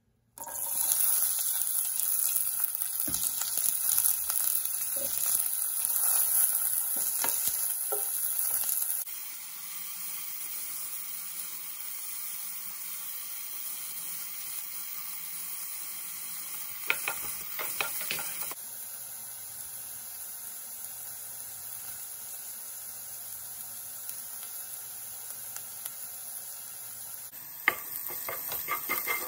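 Chopped onions dropped into hot oil and frying in a pan, with a loud sizzle that starts suddenly and settles to a quieter, steady sizzle about nine seconds in. There are a few light taps partway through, and near the end a wooden spatula scrapes and stirs the onions.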